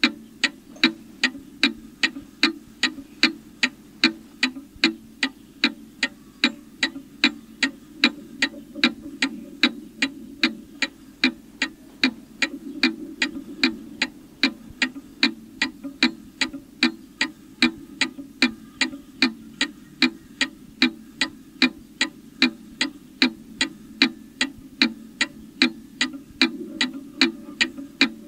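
Domestic mantel clock ticking: a fast, even run of sharp mechanical ticks that never breaks or changes pace.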